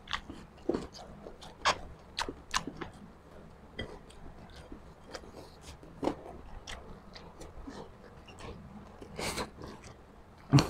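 Close-up chewing and crunching of crispy fried pork chicharon: sharp, irregular crunches, several a second at first and then sparser, with the loudest crunch near the end.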